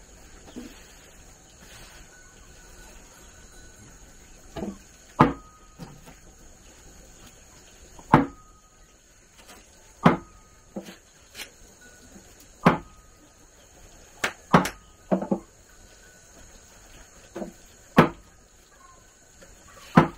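A series of sharp knocks or blows, about a dozen at uneven intervals of one to three seconds, several of them leaving a short ringing tone.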